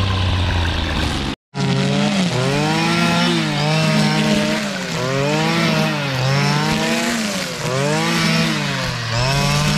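Brush cutter with nylon trimmer line running. Its engine pitch rises and falls about once a second as it sweeps through tall weeds, and the sound cuts out for a moment about one and a half seconds in.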